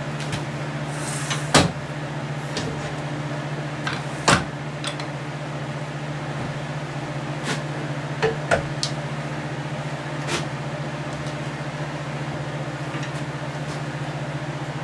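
A few short, sharp metal clunks from a wood lathe's tool rest being set against a mounted log, the loudest two in the first few seconds, over a steady low hum.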